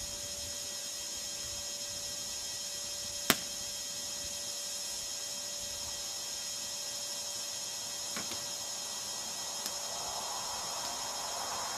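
Quiet outdoor background with a steady hiss and a faint steady hum, broken by one sharp click about three seconds in and a lighter knock about eight seconds in; insects begin a faint chirring near the end.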